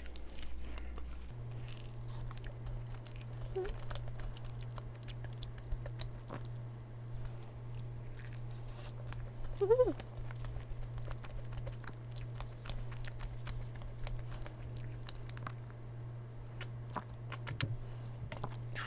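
Close-miked chewing of a lemon meringue tart: many small wet mouth clicks and light crunches of the cookie-like crust. A brief vocal sound comes about ten seconds in.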